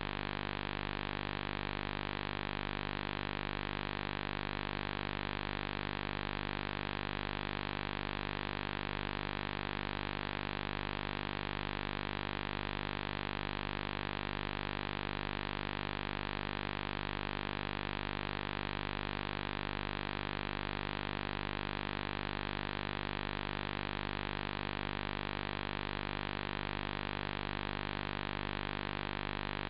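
Steady, unchanging hiss with a faint hum under it: line noise from a blank, no-signal video feed, with no programme sound.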